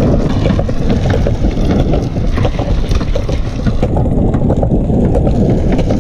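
Hard wheels rolling fast over a concrete path, a loud, steady, rough rumble with scattered clicks, mixed with wind buffeting the microphone.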